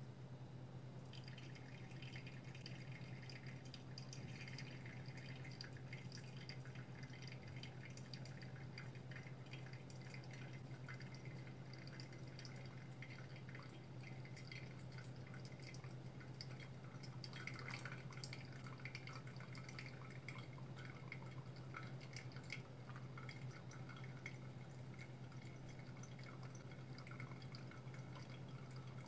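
Liquid trickling and dripping through a HARIO V60 stainless-steel pour-over coffee dripper, faint, starting about a second in, over a steady low hum.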